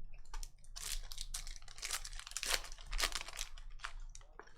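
Trading-card pack wrappers crinkling and tearing as packs are opened and cards handled: a quick run of short rustles, busiest in the middle.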